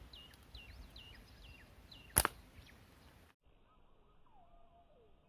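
A small bird chirping in quick, high, falling notes, then a single sharp snap about two seconds in: a flat-band slingshot being shot. After it, a few lower falling calls.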